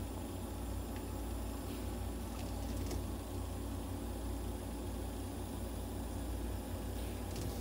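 Veterinary nebulizer and oxygen-therapy equipment running for a cat's inhalation treatment: a steady low mechanical hum with a faint hiss.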